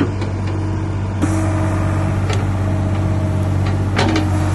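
Old Ford backhoe's engine running steadily, with a few sharp metallic clinks about two and four seconds in.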